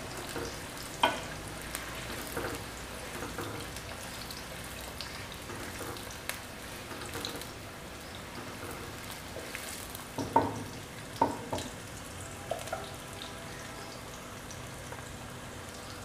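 Sliced onions frying in a cup of oil in a kadhai, a steady sizzle while they cook toward light brown. A wooden spatula stirs them and knocks against the pan a few times, mostly between about ten and twelve seconds in.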